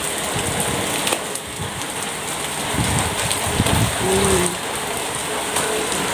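Heavy rain pouring down, a steady hiss of a downpour.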